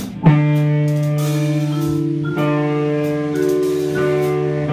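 Live band jamming: long sustained chords over a steady low note, shifting to a new chord about every second, with little drumming.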